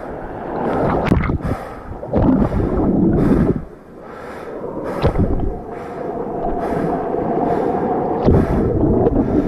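Wind buffeting the microphone in gusts, with a regular soft hiss about twice a second over it.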